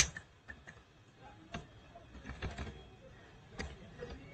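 Faint keystrokes on a computer keyboard: a few separate taps at uneven intervals, with short pauses between them.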